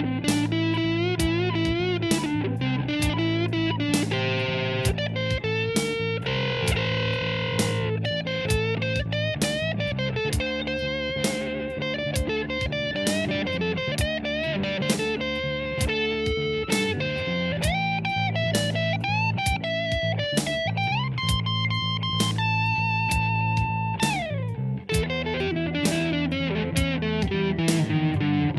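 Instrumental music: an electric guitar playing a melody with sliding notes over a steady beat.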